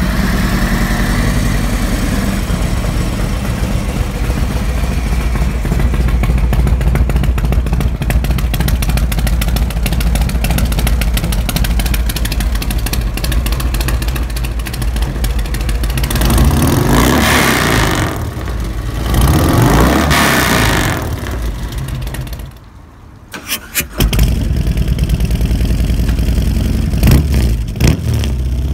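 Harley-Davidson Street Glide's Milwaukee-Eight V-twin running through SVT Boneshakers headers and mufflers, idling just after start-up. The throttle is blipped twice about two-thirds of the way through. After a brief drop-out it idles again, with a couple of quick blips near the end.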